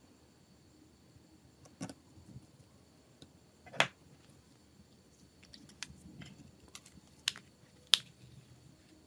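Scattered sharp clicks and taps of small hard parts and tools being handled during phone repair work; the loudest comes about four seconds in and another just before the end.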